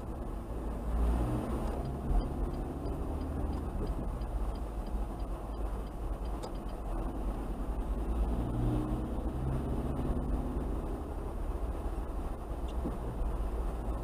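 Car's engine and tyres heard from inside the cabin while driving: a steady low rumble, with the engine note swelling about a second in and again around eight seconds in as the car pulls away. A faint, regular high ticking runs for a few seconds in the first half.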